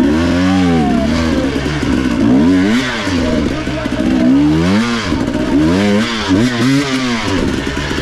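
Motorcycle engine revving up and falling back again and again, the throttle opened and shut in short bursts about once a second.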